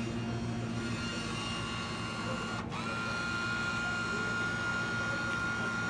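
Vending machine mechanism whirring with a steady high-pitched whine over a low hum, briefly cut off about two and a half seconds in and then resuming.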